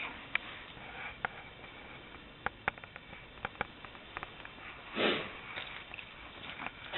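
A person sniffing once, briefly, about five seconds in, among scattered light clicks and taps.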